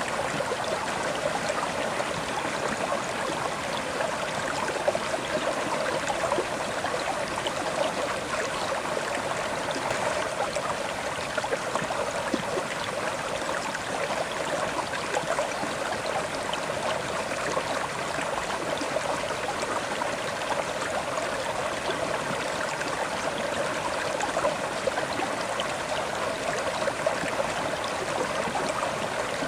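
River water flowing over stones, a steady rushing and burbling with fine splashes throughout.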